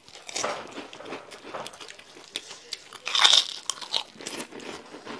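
Crisp crunching of a puffed shrimp cracker being bitten and chewed: a run of sharp crackles, with the loudest crunch about three seconds in.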